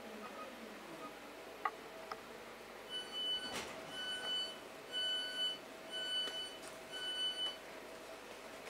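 Electric multiple unit's door-closing warning: five high beeps, each about half a second long, about one a second, with a sharp knock just after the first beep.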